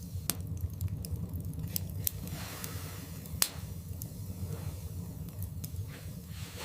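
Wood fire burning in a fireplace: scattered sharp crackles and pops over a steady low rumble, with one louder pop about three and a half seconds in.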